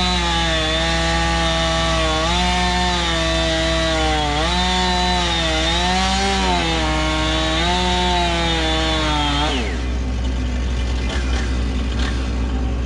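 Chainsaw at full throttle cutting a log, its pitch sagging and recovering every couple of seconds as the chain loads up in the wood. About nine and a half seconds in, the throttle is released and the pitch falls away quickly. A steady low diesel engine hum runs underneath.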